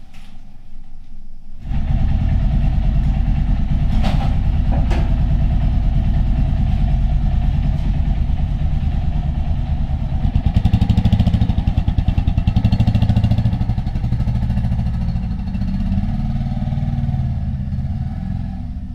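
Bajaj Pulsar 180 motorcycle's single-cylinder engine running, coming in suddenly about two seconds in and getting louder for a few seconds around the middle.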